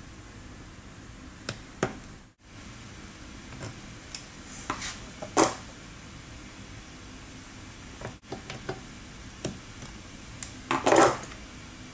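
Metal parts clicking and knocking as a metal bearing flange is handled and pressed into the end of a tube, over a steady background hum. The clicks come singly and in small clusters, with the loudest cluster near the end.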